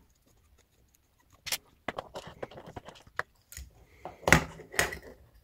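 Hands handling a small FPV quadcopter: irregular light clicks and rustles of its plastic frame, parts and wires. They start about a second and a half in, with two louder clicks past the midpoint.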